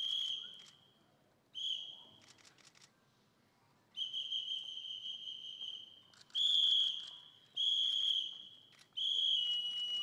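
A series of about six high, held whistle tones, each steady in pitch and lasting from half a second to two seconds, separated by short pauses.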